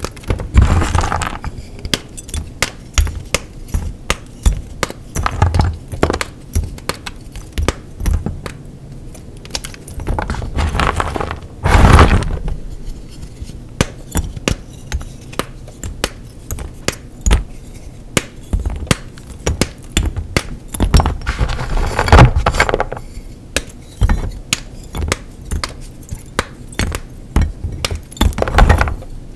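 Blocks of gym chalk being crushed and crumbled: a fast, irregular run of sharp crunches and crackles, broken by a few longer, louder grinding crunches, the loudest near the middle and again about two-thirds of the way through.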